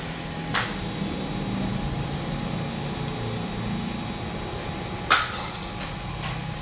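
Steady machine hum with a faint constant whine, broken by two sharp clicks, about half a second in and about five seconds in, the second louder.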